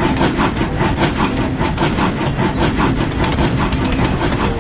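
Train sound, a steady rhythmic chugging at about four or five beats a second.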